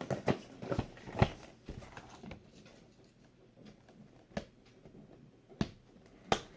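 Knife cutting and prying at GoPro packaging: a cluster of scrapes and clicks, then a few single sharp clicks.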